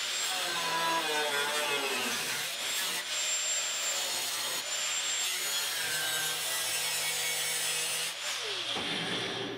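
Angle grinder with a thin cut-off disc slicing through the sheet-steel rear deck panel of a 1974 Triumph TR6: a steady high motor whine over a harsh grinding hiss that wavers as the disc bites, winding down near the end.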